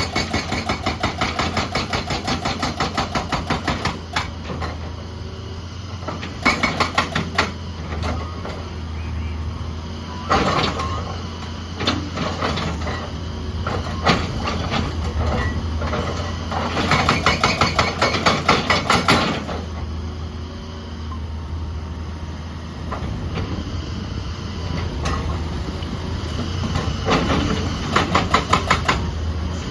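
Heavy excavator working rock, its diesel engine running steadily under several bursts of rapid, evenly spaced knocking and occasional single knocks of rock and steel.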